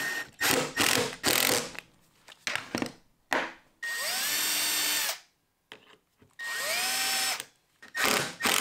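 Cordless drill-driver fastening a concealed cabinet-door hinge into plywood. It runs in several short trigger bursts, plus two longer runs of about a second each that spin up quickly to a steady whine.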